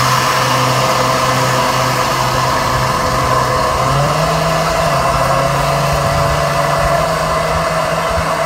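A small motor running steadily, its hum stepping up to a higher pitch about four seconds in.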